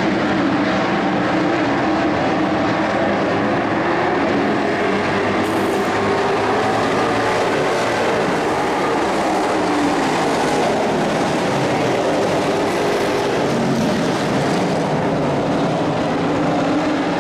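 A field of race trucks running at racing speed around an oval: several engines at once, loud and steady throughout.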